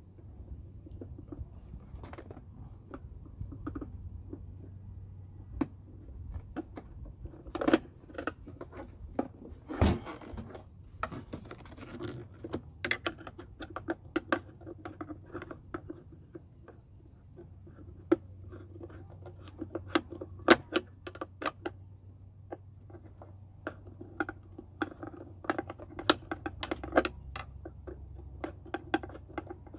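Hand screwdriver turning screws into the plastic case of a 36-volt lawnmower battery pack, with the case being handled and pressed together: irregular clicks, scrapes and taps of metal on plastic and a few louder knocks.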